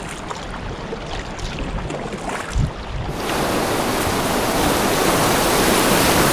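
River water running over a block ramp: lighter water noise with paddle splashes and a thump about two and a half seconds in, then a loud, steady rush of whitewater that sets in abruptly about three seconds in.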